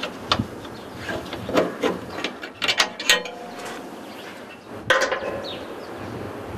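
A small padlock being unlocked and lifted off a metal hasp on a rusty steel door: a string of short metallic clicks and rattles. About five seconds in comes a louder scraping clank of metal.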